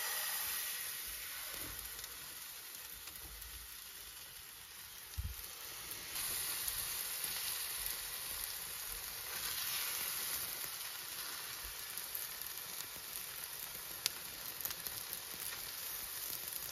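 Chive pancake batter sizzling steadily in hot ghee in a frying pan as it is ladled in and spread with a metal ladle. The sizzle gets louder about six seconds in, and there is a single low knock just before that.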